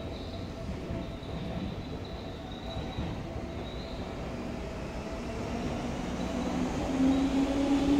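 Seibu 4000 series electric train pulling away from a station platform, the running noise growing louder as it gathers speed, with a hum that rises in pitch over the last couple of seconds.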